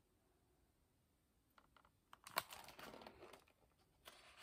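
Faint rustling and handling of a hardcover picture book as it is moved and its pages turned, with a few light clicks and one sharper tap about two and a half seconds in; near silence before that.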